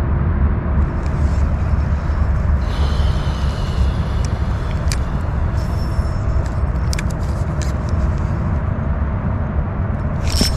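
Steady low hum of a bow-mounted electric trolling motor, with a spinning reel whirring as it is cranked for a couple of seconds a little way in and a few light clicks.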